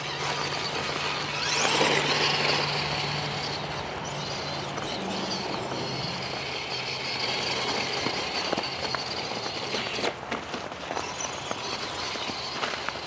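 Electric motor and drivetrain whine of an Axial SCX10 Deadbolt RC crawler driving, rising sharply in pitch about two seconds in as it speeds up, over a steady low hum. Scattered clicks and ticks near the end.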